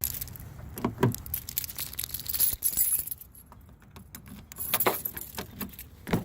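Keys jangling, with scattered clicks and knocks of handling, quieter for a moment in the middle.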